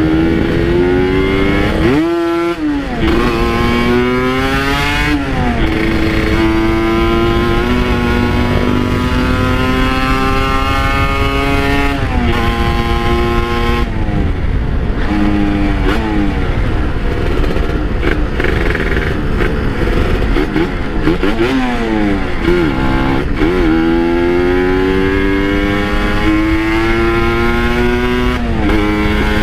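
Kawasaki Ninja 150 RR two-stroke single-cylinder motorcycle engine riding under acceleration. The pitch repeatedly climbs and then drops sharply at each gear change, with a brief fall and re-rev a couple of times.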